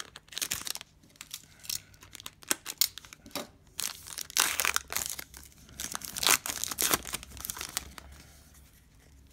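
Plastic wrapping on sealed trading-card packaging being torn open and crinkled by hand, in irregular rustling bursts that die down near the end.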